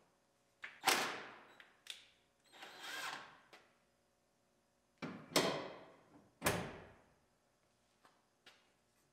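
Hand work on a pickup's front end while the headlights and grille are fitted: about six separate clunks and short tool sounds, each starting sharply and dying away within a second. The loudest come about a second in and at about six and a half seconds, with a few small clicks near the end.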